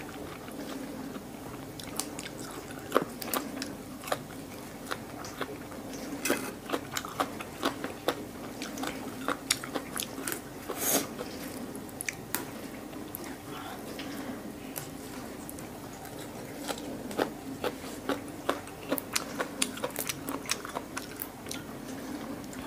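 Close-up chewing of fresh herbs, with many crisp, irregular clicks and crunches from the mouth and the leaves. A steady low hum runs underneath.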